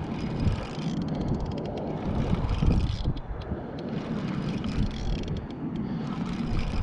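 Wind rumbling on the microphone, with faint rapid ticking during the first few seconds.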